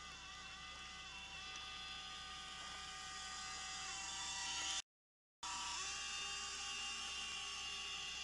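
Small RC model boat's motor and propeller whining steadily at speed, dipping briefly in pitch a few times. The sound cuts out completely for about half a second midway.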